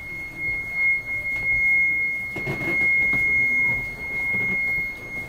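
A steady high-pitched tone held at one unchanging pitch throughout, like an electronic whine or beep. A few muffled bumps and rustles come through around the middle.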